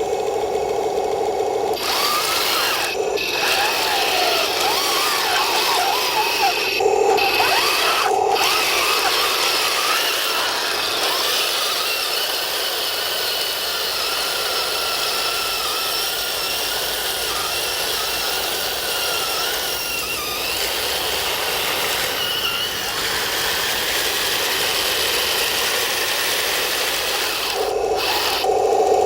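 Electric gear motors of an RC M26 tank with metal tracks, whining as it drives, the pitch wandering up and down with throttle and load, over a steady rattling clatter of the tracks. About two seconds in, the whining drive starts, replacing a steadier lower hum, which returns near the end.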